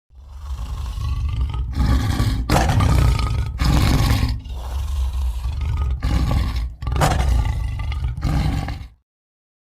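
Tiger roars and growls, about eight deep calls back to back with short breaks between them, stopping about nine seconds in.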